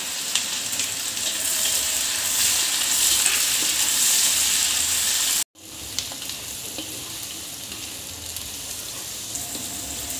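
Sliced onions sizzling hard in smoking-hot oil in an iron wok over high heat. About halfway in the sound cuts off abruptly. It resumes as a quieter sizzle, with a wooden spatula scraping and stirring the onions.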